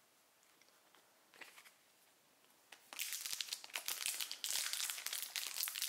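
Foil wrapper of a Flesh and Blood Welcome to Rathe booster pack crinkling and tearing as it is ripped open by hand, starting about halfway in; before that only a faint rustle.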